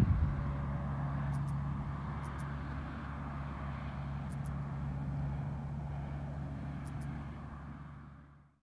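Steady low hum of a running engine, fading out near the end.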